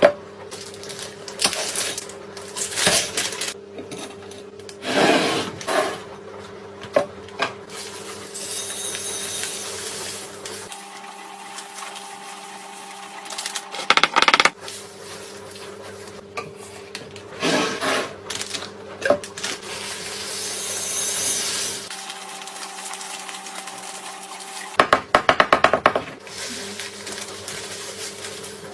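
Handling sounds of unboxing a gadget: packaging and objects rubbed, scraped and tapped, with a quick run of sharp clicks about 25 seconds in, over a steady low hum.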